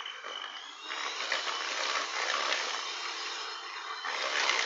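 Electric hand mixer running, its beaters whirring through a sugar mixture in a plastic bowl. It gets louder about a second in.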